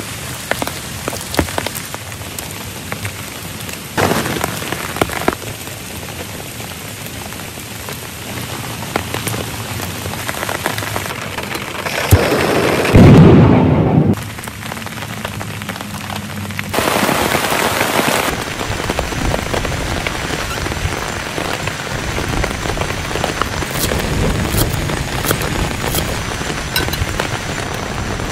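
Heavy rain falling steadily, with one loud rumble of thunder about halfway through.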